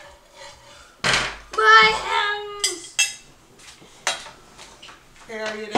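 A metal spatula clinking and scraping against a pancake griddle, with a few short, sharp clicks.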